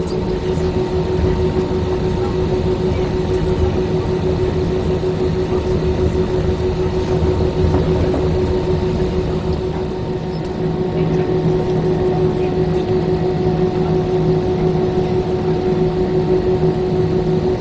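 Cabin noise of an Airbus A320-214 taxiing, its CFM56 engines at idle: a steady hum with a steady whine over a low rumble.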